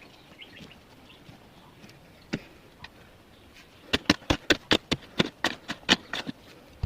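One sharp knock, then a quick run of about a dozen sharp knocks or taps over about two seconds.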